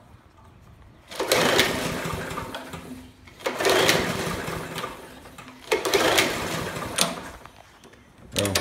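Briggs & Stratton 140cc engine on a Troy-Bilt push lawn mower pulled over three times on its recoil starter, each pull a sudden whir that dies away without the engine catching. It is a no-start: the fuel system is badly contaminated.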